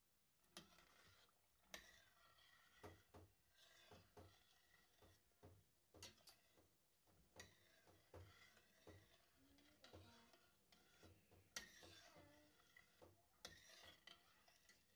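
Faint, irregular clinks and scrapes of a metal spoon against a stainless steel pot as boiling macaroni is stirred.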